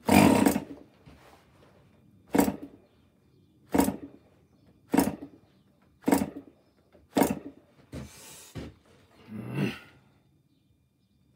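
MDS 40 model glow engine being flicked over by its propeller: six short bursts, a little over a second apart, as it fires briefly and dies each time, then two weaker, longer sputters near the end. These are false starts, which the owner puts down to a badly adjusted needle valve.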